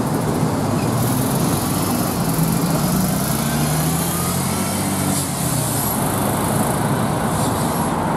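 Volgabus-5270.G0 city bus pulling away from a stop: its engine note rises as it accelerates, then fades as the bus moves off, over steady traffic noise.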